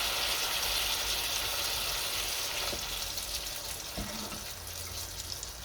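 A steady hiss of cooking on the stovetop that fades after about three seconds, with one light knock of cookware about four seconds in.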